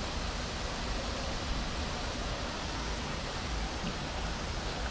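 Steady, even rushing outdoor noise with a low rumble underneath and no distinct events.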